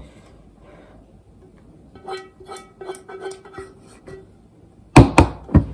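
Three sharp knocks near the end: a spoon rapped against the cooking pan. Before them comes a short run of faint plucked-string notes of music.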